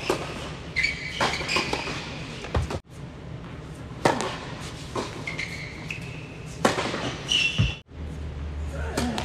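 Tennis balls struck by rackets and bouncing during indoor doubles play: sharp pops that echo in the hall, with short high squeaks between shots.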